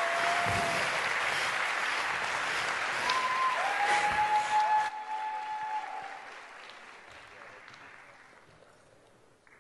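Theatre audience applauding at the end of a dance routine, with a few long drawn-out whoops from the crowd over the clapping. The applause is loud for about five seconds, then dies away to near silence.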